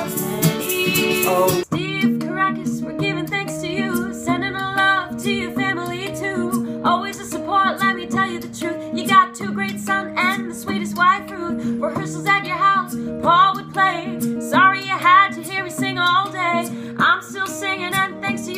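Acoustic guitar strummed while a woman and a man sing together. The music breaks off abruptly about two seconds in, and a new song starts with the same voices and guitar.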